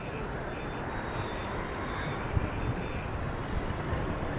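Steady outdoor street traffic noise: a continuous drone of passing vehicles with no distinct events.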